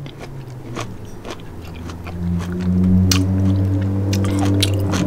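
A person chewing and biting food, with many short wet clicks and crunches. A steady low humming tone rises about a second and a half in and is the loudest sound until near the end.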